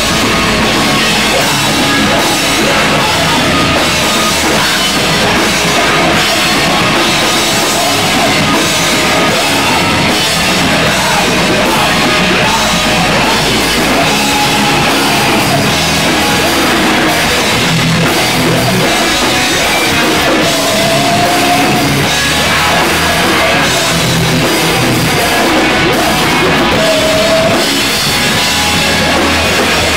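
A live rock band playing loud, heavy punk/hardcore-style music: a drum kit pounding under distorted electric guitars and bass, with no breaks.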